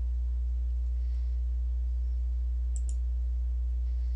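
A steady low electrical hum runs throughout. Two quick computer-mouse clicks come a little under three seconds in.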